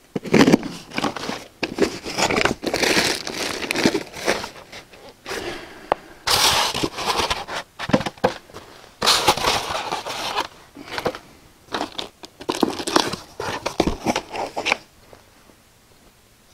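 Cardboard and plastic packaging being torn open and handled, crinkling and tearing in irregular bursts, quieter near the end.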